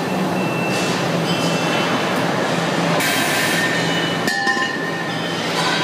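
Steady machinery noise with a low hum and scattered metallic clinks from a rig that tilts a hose-connected frame of steel gas cylinders. About four seconds in the noise dips slightly and a few thin high tones sound.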